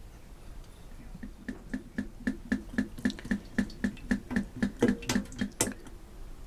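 Mineral oil glugging out of a large metal oil tin as it is poured into a metal jug: a steady run of glugs, about four a second, as air gulps back into the tin. The glugs start about a second in and stop shortly before the end.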